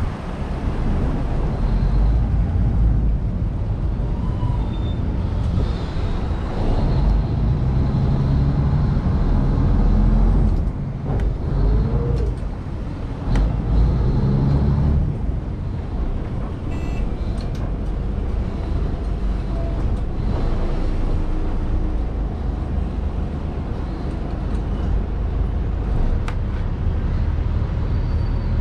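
Chao Phraya Express Boat's diesel engine running with a steady low rumble, with water and wind noise from the open boat.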